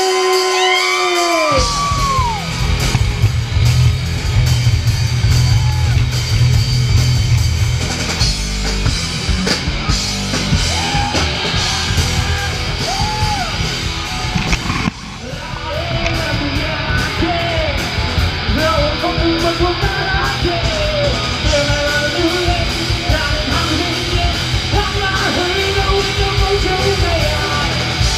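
Live hard rock band playing a song: distorted electric guitars, bass and drums come in about a second and a half in, drop out briefly near the middle, then come back with yelled and sung vocals over them.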